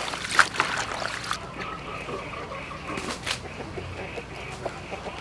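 Leafy greens being handled and picked over by hand: rustling with sharp stem snaps, the loudest about half a second in and a few more scattered through.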